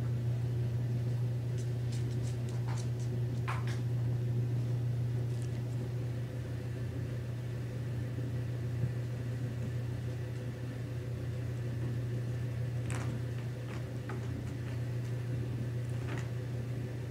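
A steady low mechanical hum, with a few faint light taps and scratches from kittens scampering and pouncing on a wooden floor and carpeted scratcher.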